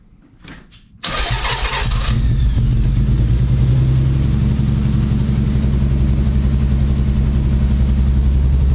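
Nissan 300ZX Z32's VG30 V6 cranking and catching about a second in, then idling with a steady low pulsing. The engine is still misfiring, which the owners suspect is from bad fuel injectors on cylinders 4 and 6.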